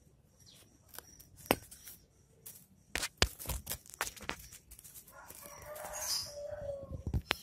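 Scattered sharp clicks and knocks of a stick tapping and scraping on concrete as a cat plays with it, then a drawn-out animal call of about two seconds near the end.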